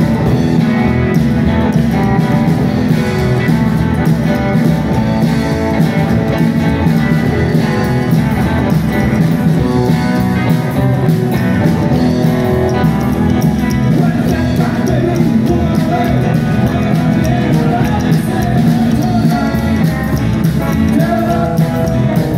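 Rockabilly band playing live: upright bass, electric and acoustic guitars and drum kit, in a steady, unbroken rock and roll number.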